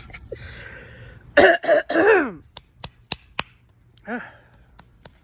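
A woman coughing and clearing her throat from cigar smoke. A loud, harsh hacking fit comes about a second and a half in and a shorter cough near four seconds, with a few sharp clicks between them.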